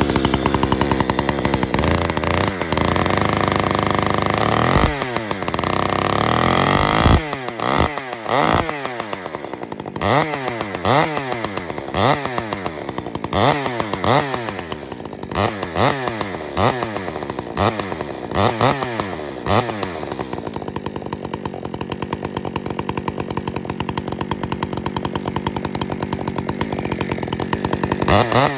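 Stihl MS 462 chainsaw with an aftermarket West Coast muffler, running at high revs, then revved down and up over and over, about once every second and a half, before settling into steadier, lower running near the end.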